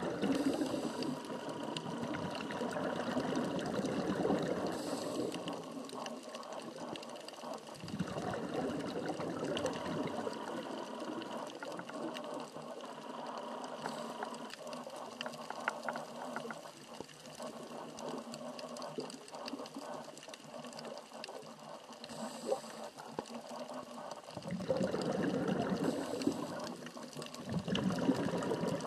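Scuba diver breathing through a regulator, heard underwater: bursts of exhaled bubbles lasting a few seconds each, with quieter stretches between them.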